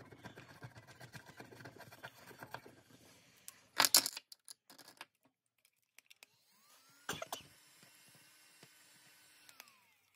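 A pen tip scratching the coating off a paper scratch-off card, a run of fine, quick scratches. About four seconds in comes a short, loud rustle, the loudest sound. After a moment of silence there is a click, then a faint whine that rises, holds steady for about three seconds and falls away.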